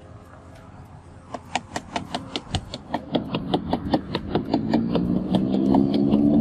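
Motor vehicle engine passing: rapid even ticks, about five a second, start a little over a second in, and a rising hum joins them and grows louder toward the end.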